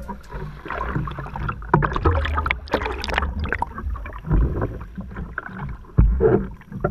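Shallow seawater sloshing and splashing around a camera held at the waterline, in irregular surges with small knocks and gurgles.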